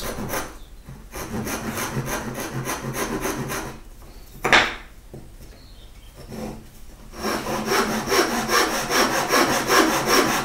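Japanese pull saw cutting down through a wooden board with quick, even strokes, deepening the cheek cut of a halving joint. About four seconds in the sawing stops briefly and there is a single sharp knock; then the strokes resume, louder and steady.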